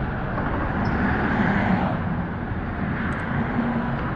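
Heavy diesel truck engine running steadily, a continuous low drone with engine noise over it.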